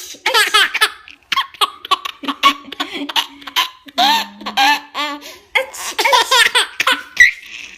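A baby laughing delightedly in many short, high-pitched bursts of giggles, set off by sneezes.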